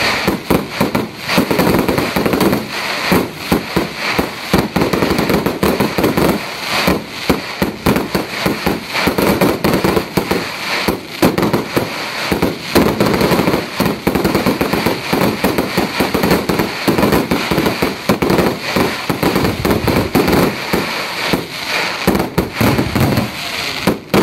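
Professional fireworks display: aerial shells bursting in a rapid, unbroken barrage of bangs and crackling, several bursts a second.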